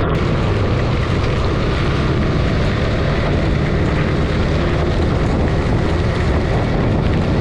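Suzuki Gixxer 155's single-cylinder engine running steadily while the bike is ridden at speed, with heavy wind noise on the action camera's microphone.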